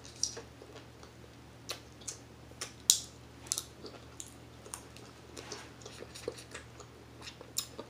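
Close-up eating of a crab and shrimp boil: scattered sharp clicks and smacks of shell being picked apart and meat eaten off the fingers, the loudest about three seconds in.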